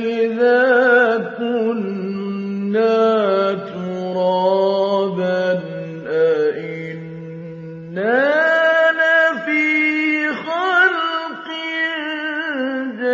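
A man reciting the Quran slowly and melodically, drawing out each syllable into long, ornamented held notes. About two-thirds of the way through, his voice leaps to a higher pitch and stays there.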